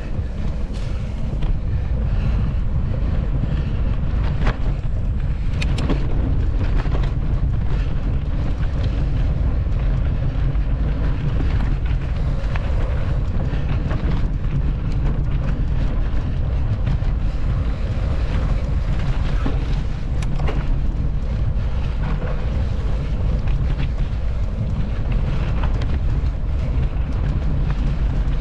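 Steady wind rumble on an action camera's microphone during a mountain-bike ride, with frequent small clicks and rattles from the bike throughout.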